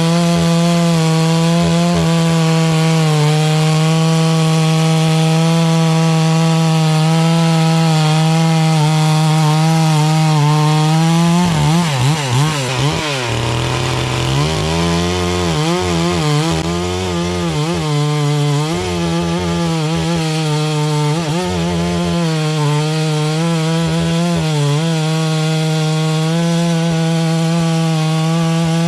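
Farmmac F380W two-stroke gas chainsaw running at high revs while cutting through wood, its engine note steady under load. About halfway through, the pitch wavers and drops for a couple of seconds, then comes back up and rises and dips a few more times before steadying again.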